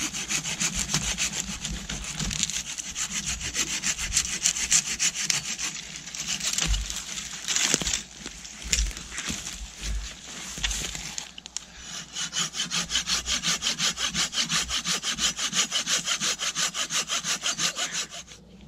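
Hand saw cutting through a fallen wooden branch in rhythmic back-and-forth strokes. After a short break about twelve seconds in, the strokes come in a quicker, very even run, then stop just before the end.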